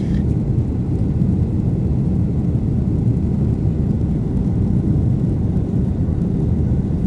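Cabin noise of a Boeing 747-400 climbing after take-off, heard from a window seat over the wing: a steady, low roar of its four turbofan engines and rushing air, with no change in level.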